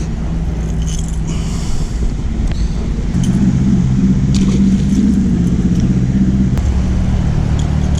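A motor engine running with a steady low drone, growing louder about three seconds in and easing off a little after six and a half seconds.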